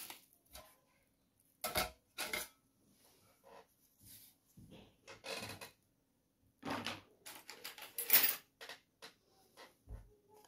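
Art supplies handled on a wooden tabletop: a plastic bag crinkling, wooden-handled brushes set down with light knocks, and metal scrapers clinking near the end, as a string of short separate noises with pauses between them.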